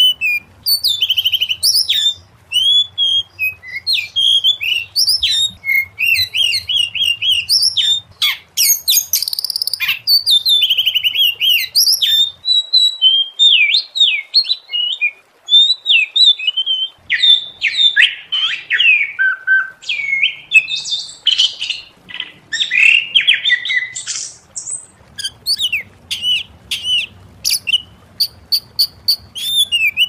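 Oriental magpie-robin singing a long, varied song of clear whistled phrases mixed with fast chattering notes, with short pauses between bouts.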